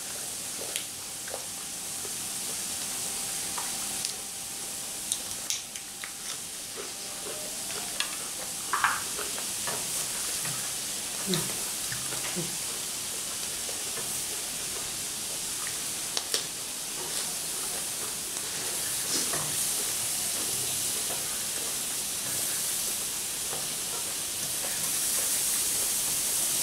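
Squid tentacles sizzling on an electric tabletop grill plate: a steady frying hiss that grows a little louder near the end, with occasional light clicks and taps.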